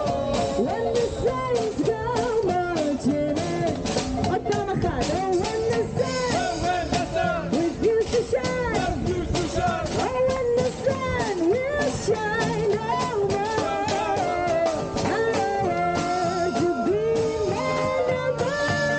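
Small acoustic swing band playing live, with singing over banjo, double bass, trumpet and washboard keeping a brisk, steady beat.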